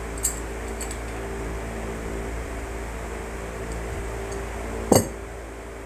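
Steady machine hum with a few light clicks near the start and one sharp click about five seconds in.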